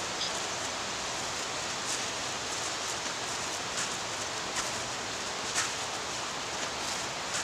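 Steady hiss of noise, with a few faint crackles scattered through it.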